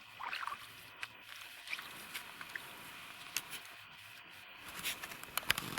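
Faint handling sounds: a short rising squeak about a quarter second in, then scattered light clicks and small knocks over a soft hiss, a few coming closer together near the end.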